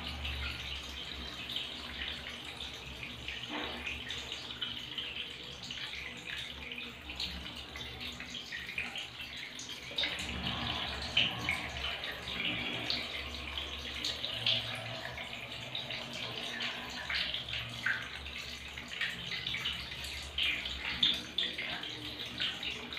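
Water running into a plastic water tank: a steady splashing with small crackling bubbles and a low hum underneath.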